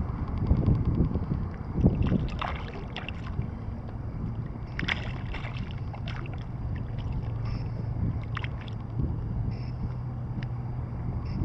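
Choppy water lapping and splashing against a small fishing craft close to the microphone, with wind. A steady low hum comes in about halfway through.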